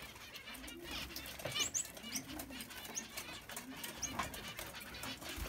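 Small finches in a crowded cage aviary, Gouldian finches among them, chirping and twittering with many short high calls, mixed with light clicks and rustles of birds moving about the cages.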